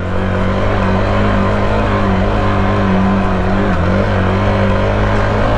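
Hero XPulse dual-sport motorcycle's single-cylinder engine running at steady throttle while riding off-road, with a brief dip in revs about two-thirds of the way through. A steady rushing noise runs underneath.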